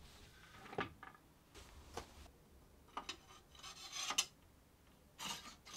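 Aluminium T-track being set into and slid along the miter slots of a cast-iron router table top. A few short metal knocks come about a second apart, with scraping slides of metal on metal in the second half.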